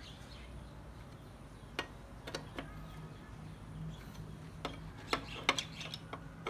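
Scattered sharp clicks and light taps of hard objects being handled, irregular and spaced out, with a cluster of them in the second half.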